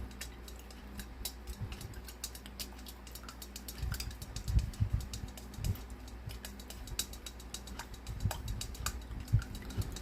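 Stirring the water, glycerin and snow mixture inside a snow globe so the glycerin blends in and the liquid clears: many quick, irregular light clicks of the stirrer against the globe, with a few soft knocks about four to six seconds in.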